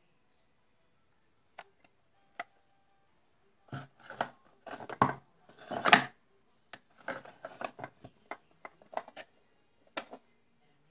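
Antique hand-carved wooden snake-trap box being handled: scattered wooden clicks, then a cluster of louder scraping and knocking from about four to six seconds in, followed by a string of sharp clicks and knocks.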